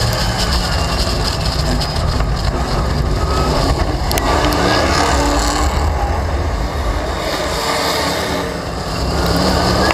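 Late Model stock car's V8 engine running hard at racing speed, heard from the car's onboard camera, with the noise of the car at speed. The engine sound eases briefly near the end, then picks up again.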